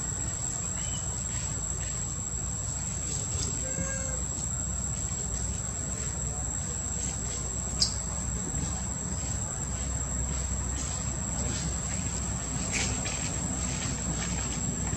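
Steady high-pitched insect drone over a low rumble, with a few faint short calls about a second and about four seconds in, and a single sharp click near the middle.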